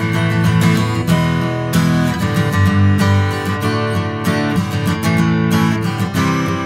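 Background music led by a strummed acoustic guitar, with a steady pulse of chords.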